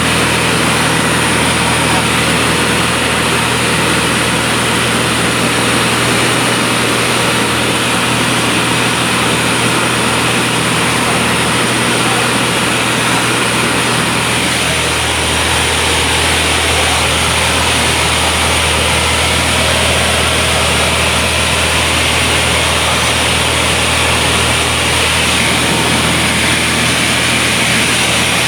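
Airplane engine drone with a loud steady rush of cabin noise, heard from inside the aircraft; the low hum shifts slightly about halfway through.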